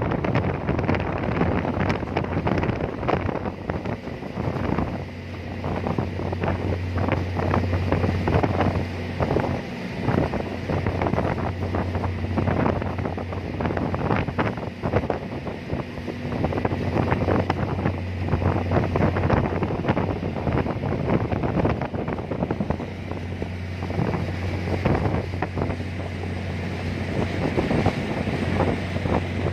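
A ferry's engine running with a steady low hum, under strong wind gusting across the microphone.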